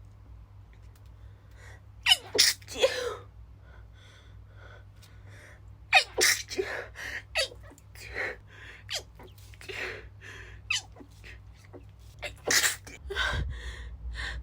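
A woman's stifled sneezes, a run of short held-back bursts coming in pairs and singles, with gasping in-breaths between them.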